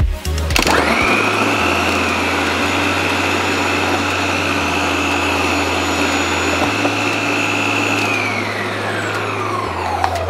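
Vidiem Tusker mixer grinder running its food-processor jar, shredding cabbage. The motor starts with a quick rising whine about half a second in and runs steadily at speed. Near the end it is switched off and winds down with a falling whine.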